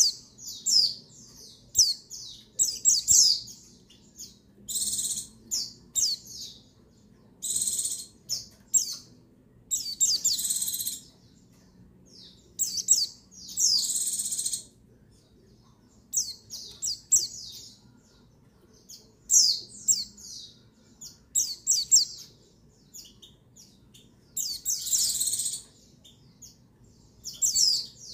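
White-eye (pleci) calling: rapid high chirps and short trilled bursts, repeated every second or two, some held for about a second. Offered as a female white-eye's call, used by keepers to raise the males' breeding drive and get them singing.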